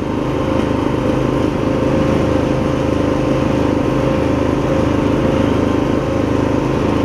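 MTD Lawn Chief garden tractor's 20-horsepower V-twin engine running steadily under load as the tractor drives along in seventh gear of high range.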